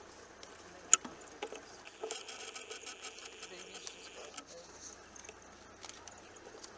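Camera handling noise: one sharp click about a second in, then the whir of the camcorder's zoom motor for about two seconds as the lens zooms in, with scattered small clicks over a faint steady high hiss.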